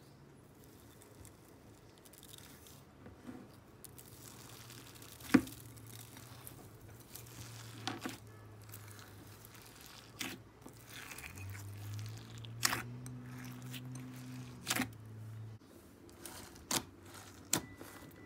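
Clear slime loaded with confetti sequins and glitter being squished and kneaded by hand, with soft crinkling and scattered sharp sticky clicks and pops, the loudest about five seconds in.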